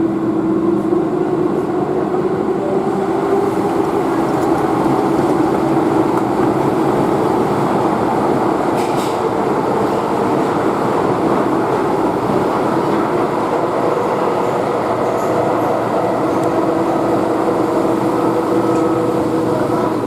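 Keihan electric train running at speed, heard from inside the car: a steady rumble of wheels on rail with a constant motor hum.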